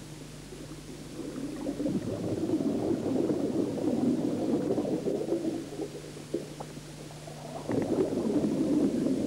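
Scuba diver's exhaled air bubbling out of the regulator as a gurgling rush, in two long exhalations: the first starting about two seconds in, the second near the end. A steady low hum fills the gaps between breaths.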